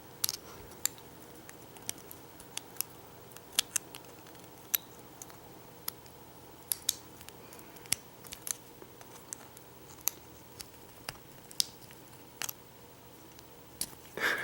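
Irregular sharp small metal clicks and snaps of circlip pliers working at the retaining circlip on a Vachette V5 lock cylinder, about twenty over the stretch, with quiet gaps between.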